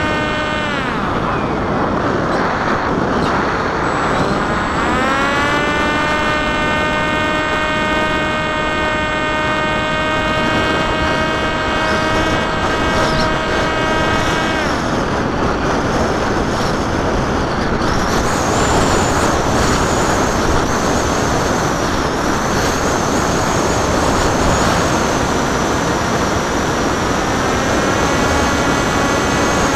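The Popwing's electric propeller motor whines over wind rushing past the onboard microphone. Its pitch drops at the start, climbs about five seconds in and holds steady. It cuts out around fifteen seconds in, leaving only wind noise, and comes back up near the end.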